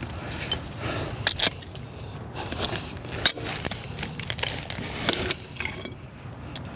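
Pipe wrench working a brass sewer cleanout plug loose: irregular metallic clicks and scrapes from the wrench jaws and the plug turning in its threads.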